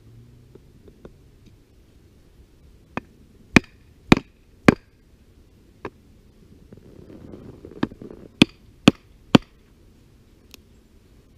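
A wooden baton striking the spine of a knife to drive the blade into a wooden stick, cutting a pot-hanger notch: sharp wooden knocks in two quick runs of three or four strikes about half a second apart, with a few single knocks between them.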